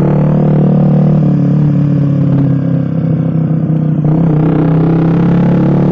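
Suzuki GSX-R150's single-cylinder engine running steadily through an aftermarket racing exhaust while riding, with a brief dip in level about three seconds in.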